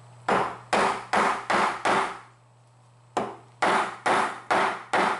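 Steel wood chisel being struck to cut into wood, sharp blows in two runs of five, about two a second, with a short pause between the runs. The chisel is cleaning out an inlet cut for a workbench leg.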